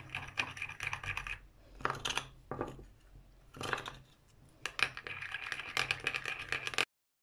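Metal spoon scraping and clinking against a small dish while stirring a thick paste of egg white, potato starch and ground rice, in several bursts with short pauses; it cuts off suddenly near the end.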